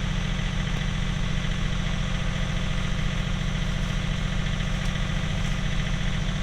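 John Deere 3039R compact tractor's three-cylinder diesel engine running steadily at an even speed while the tractor pulls a middle buster to lift potatoes.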